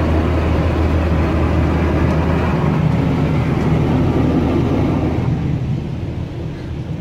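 Touchless automatic car wash (LaserWash 360) spraying water onto a van, heard from inside the cabin, over a steady low hum of the wash machinery. The hiss of the spray eases off about five seconds in.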